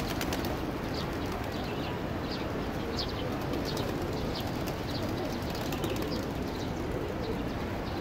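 A flock of feral pigeons cooing, with scattered wing flaps and short high chirps from small birds over a steady outdoor hubbub.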